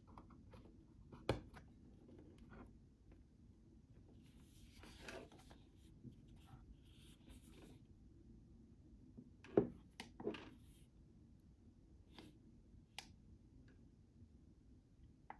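Quiet handling of a white plastic digital photo frame and its stand: a sharp click about a second in, soft rubbing and sliding, then two louder knocks a little past the middle and a few light ticks.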